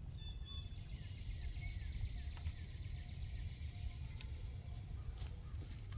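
Riverside outdoor ambience: a low, steady rumble with faint, short bird chirps above it and an occasional light click.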